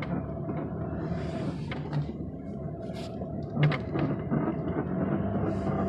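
Front-end noise from a 2001 Chevrolet Impala turning left: a low rumble with a steady hum, broken by a few sharp clicks or knocks about two to four seconds in. The owner does not know what causes it.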